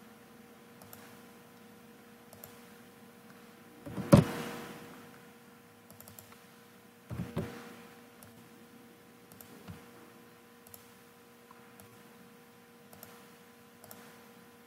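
Light computer mouse and keyboard clicks at the desk over a steady hum, with one loud thump about four seconds in and a quicker double knock about three seconds later.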